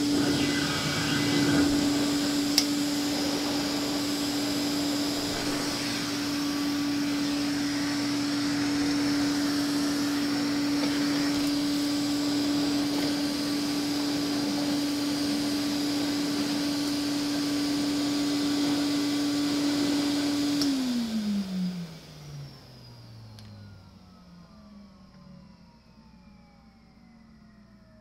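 Hoover Constellation model 84 spherical canister vacuum running with a steady hum and airy hiss, floating on its cushion of exhaust air, its motor running smoothly though never lubricated in over a decade. About three-quarters of the way through it is switched off, and the motor winds down with a falling pitch and fades away.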